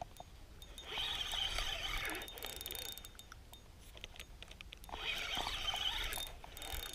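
Spinning reel whirring in two bursts of a second or two each, with fine rapid ticking, as a hooked salmon is fought on the line.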